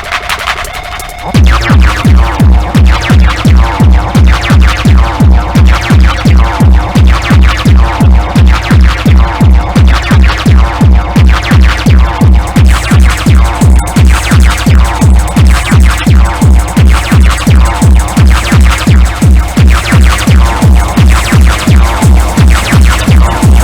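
Electronic dance music played in a DJ set. A held synth tone gives way about a second in to a heavy four-on-the-floor kick drum, which then pounds at a steady fast tempo under synth layers.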